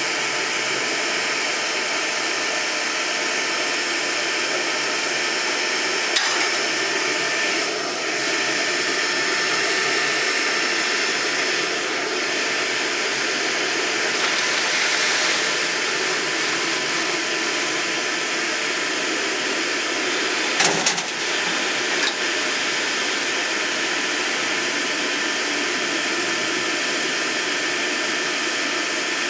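Electric blower whirring steadily, drawing air through the wood gasifier to light and draw it up for a cold start; the tractor engine is not yet running. A couple of short knocks about six seconds in and again around twenty-one seconds in.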